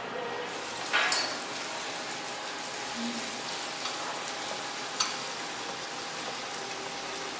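A steady sizzling hiss, like food frying, with two light clinks of a metal utensil, one about a second in and one about five seconds in.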